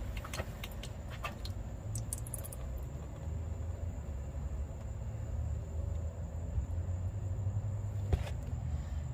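Used engine oil trickling in a thin stream from the oil pan's drain hole into a drain pan of oil, over a steady low rumble. A few light clicks sound in the first couple of seconds, and another about eight seconds in.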